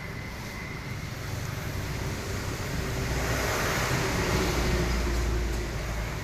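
Vertical pellet machine running: a steady mechanical rumble with hiss, getting louder from about halfway and easing off near the end.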